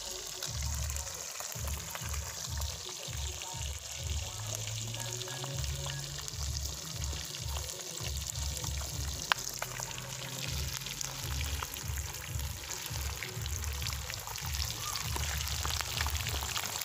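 Fish frying in hot oil in a small pot: a steady crackling sizzle, with one sharp pop about nine seconds in. A music bass line pulses underneath.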